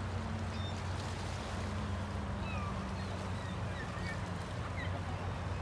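Steady city street noise with a low, even hum underneath and scattered short, high chirps.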